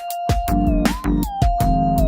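Electronic intro music: a gliding synth lead over deep bass with a steady drum beat.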